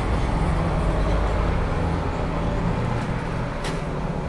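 Steady low rumble of motor-vehicle engines and road traffic, with one light click near the end.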